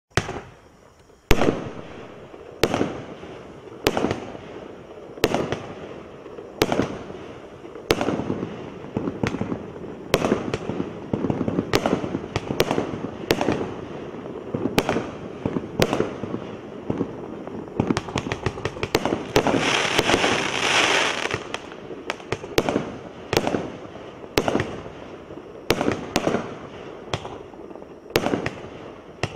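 A multi-shot aerial firework cake firing shot after shot. Each shot is a sharp bang followed by a short crackle, about one every 1.3 seconds at first. The shots come faster past the middle, with a spell of dense crackling about two-thirds of the way in.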